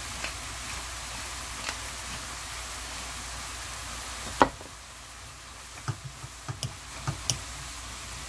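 Beef and oyster mushrooms sizzling in a frying pan, a steady hiss with small crackles. About halfway through a sharp click sounds and the hiss drops suddenly, followed by several short knocks of a wooden spatula against the pan as the food is stirred.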